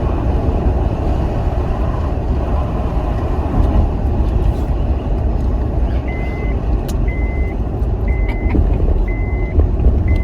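Steady low road and engine rumble inside a moving car. About six seconds in, a high electronic warning beep starts, sounding for about half a second once every second.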